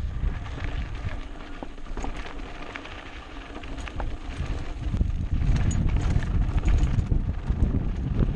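Wind buffeting the microphone of a mountain bike rider's GoPro on a fast descent, with the bike rattling and clicking over a bumpy trail. The wind eases for a few seconds, then comes back strongly about five seconds in.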